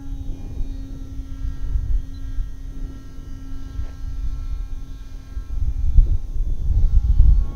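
RC paramotor's motor and propeller running with a steady hum, under low rumbling wind buffeting the microphone that grows louder about six seconds in.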